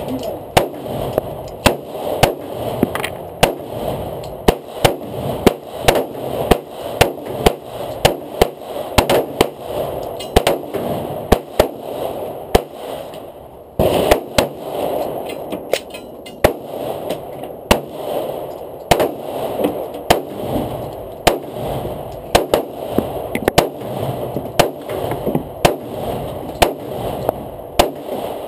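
Handgun shots fired again and again at an irregular pace, roughly one or two a second. They break off briefly about halfway through, then resume.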